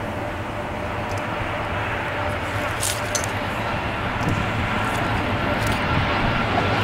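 Jet engines of a Lufthansa Airbus A380 on landing approach: a steady rushing noise with a thin high whine, both growing gradually louder as the airliner comes closer.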